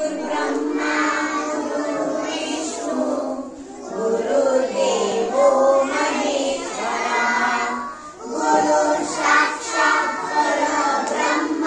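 A group of young children singing a prayer together in unison, with short pauses between phrases about three and a half and eight seconds in.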